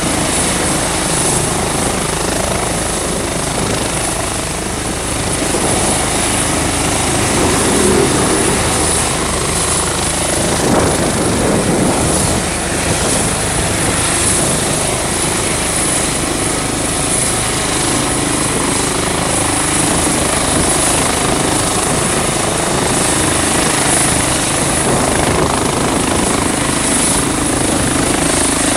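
Airbus H145 (EC145 T2) helicopter hovering low, its twin turboshaft engines, main rotor and Fenestron tail rotor running steadily with a high whine on top.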